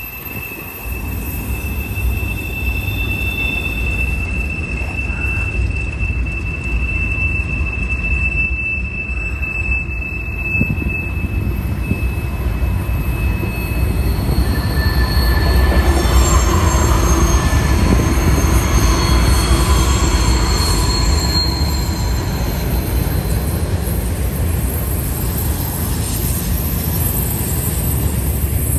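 Freight cars rolling past on steel wheels that squeal against the rails, over a steady low rumble. A single long high-pitched squeal holds for the first half. After that it gets louder and several higher squeal tones come and go.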